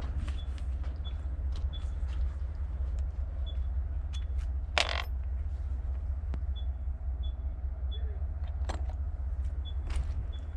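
Scattered knocks and clinks of scrap metal being handled, with one louder ringing clank about five seconds in, over a steady low hum.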